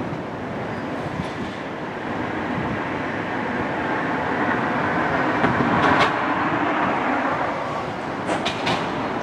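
Train rolling along its track, the running noise swelling to a peak about six seconds in, with sharp clicks of wheels over the rails near the peak and a quick cluster of them near the end.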